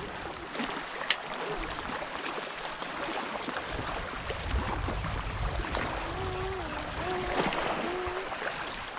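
Shallow water sloshing and trickling, with a single sharp click about a second in and a faint tune of a few stepped notes near the end.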